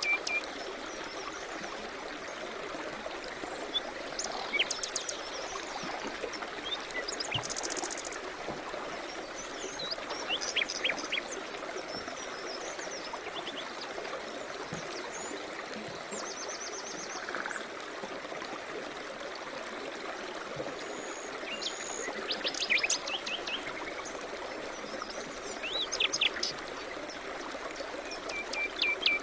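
A river or stream running steadily, with songbirds chirping and trilling off and on over it: short calls and quick trills scattered through, none continuous.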